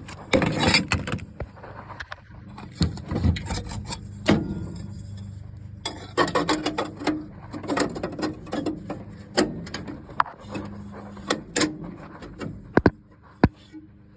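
Irregular knocks, clanks and scraping of a homemade metal bracket being pushed and wrestled into place against a pedal assembly, over a steady low hum.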